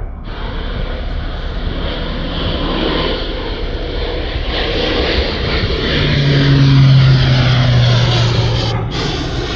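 Agricultural spray plane's engine and propeller drone as it makes a low spraying pass and climbs overhead. It grows steadily louder, is loudest about seven seconds in, and eases slightly near the end.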